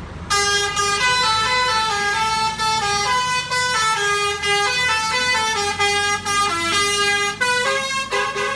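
A lorry's telolet (basuri) musical air horn playing a quick tune, its notes stepping up and down every fraction of a second. It starts sharply just after the beginning.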